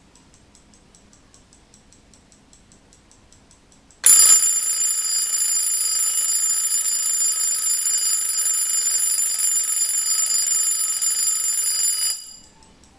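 Slava 11-jewel mechanical alarm clock ticking quickly and faintly. About four seconds in, its alarm bell starts ringing loudly, a steady metallic ring from the hammer striking the bell, and stops abruptly after about eight seconds, leaving the ticking.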